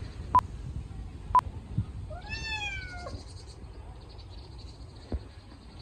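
A cat meowing once, a single call that rises and then falls, about two seconds in. Two short sharp clicks come before it.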